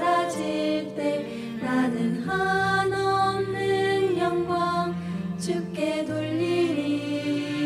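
Two women singing a Korean worship song as a duet, on long held notes, over a sustained instrumental accompaniment.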